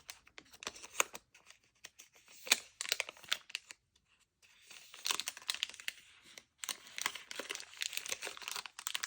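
Paper rustling and crinkling as journal pages and loose paper ephemera are handled, with scattered sharp clicks and taps; the rustling grows denser from about five seconds in.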